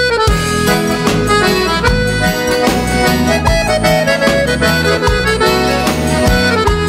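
Instrumental break of the song, with no singing: a lead melody over bass and a steady drum beat.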